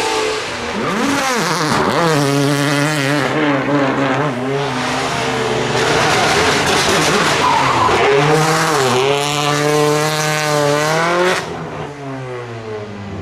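Race car engine revving hard, its pitch dipping and climbing several times and held high between, with tyre squeal; the engine sound drops away sharply near the end.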